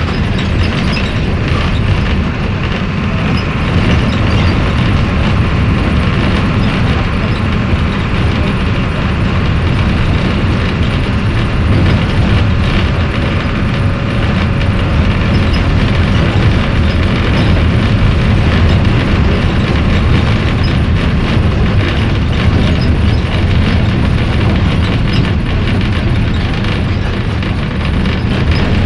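Mercedes-Benz OF-1721 city bus's OM 366 LA turbocharged six-cylinder diesel engine running with the bus under way, a steady deep drone that rises slightly about four seconds in.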